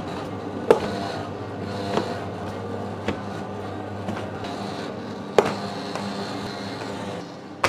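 Electric dough sheeter running with a steady motor hum as dough is pressed again through its rollers to build up layers. Several sharp slaps of dough sheets strike the machine and the table at uneven intervals.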